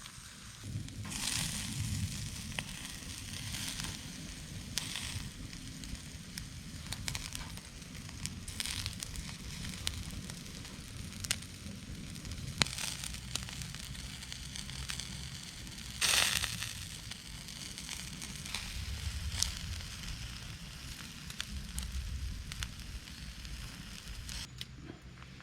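Wood campfire crackling, with scattered sharp pops and several brief surges of hiss over a low steady rumble.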